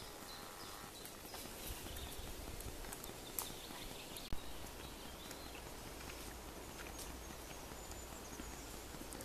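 Quiet woodland ambience: faint high bird chirps and scattered light clicks and rustles, with a low steady rumble coming in about four seconds in.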